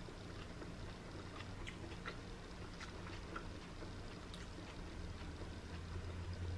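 Quiet eating sounds: soft ticks and smacks of chewing and of fingers picking meat off a fish, scattered every half second or so, over a low steady hum that grows louder near the end.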